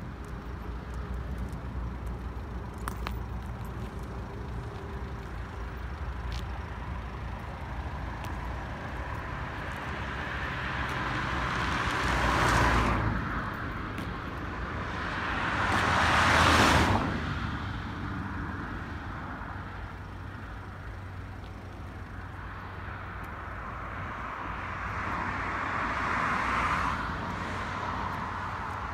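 Cars passing by on an asphalt road, three in turn, each rising and then fading away; the second is the loudest. A low steady rumble runs underneath.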